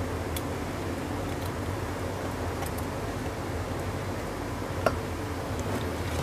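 Steady low background hum with a few light clicks of a spatula and whisk against the bowls as diced mango is scraped into custard. The clearest click comes about five seconds in.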